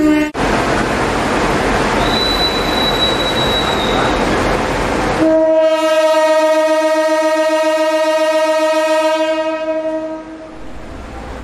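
Diesel locomotive horn, a CC 201 class engine, sounding one long steady blast of about five seconds at a single pitch. Before it, loud rushing train noise with a thin high squeal lasting a couple of seconds; after it, a lower rumble.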